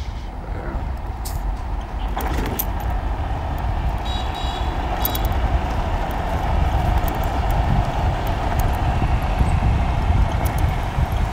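Riding noise from a moving bike on a paved road: wind rushing over the microphone with a steady low rumble of the tyres, getting a little louder after a couple of seconds, with a few light clicks and rattles.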